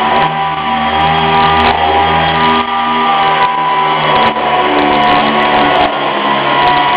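Pneumatic air sander running steadily against a car's body panels, a continuous hiss with a steady whine. Background music with changing notes plays underneath.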